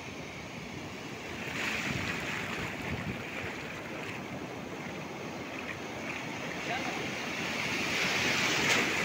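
Sea surf washing up the beach through shallow water, a steady rush that swells about two seconds in and again, louder, near the end as waves come in.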